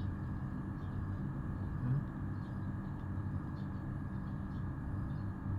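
A steady low mechanical hum runs throughout, unchanging.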